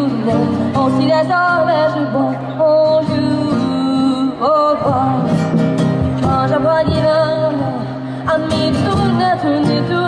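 Live acoustic street band: a woman singing a wavering melody over acoustic guitar and hand drums.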